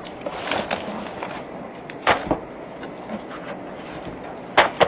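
Cardboard cartons and plastic-wrapped bundles of banknotes being handled: rustling and crinkling, with a few sharp knocks about two seconds in and again near the end as bundles are pulled out and set down.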